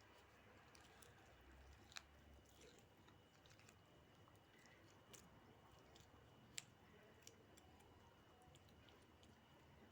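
Near silence: room tone with a few faint, sharp clicks, the clearest about two seconds in and again past the middle.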